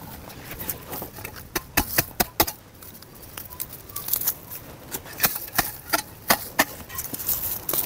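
Hoe blade chopping into sandy soil and the roots of weed grass: a run of sharp, irregular chops in two flurries, around two seconds in and again from about five seconds.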